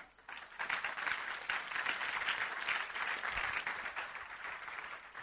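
Large seated audience applauding, many hands clapping at once. The applause swells within the first second and tapers off near the end.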